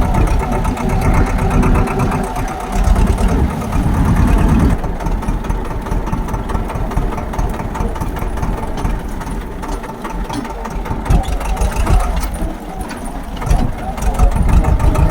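Tractor engine running steadily with a low rumble and a fine regular knock.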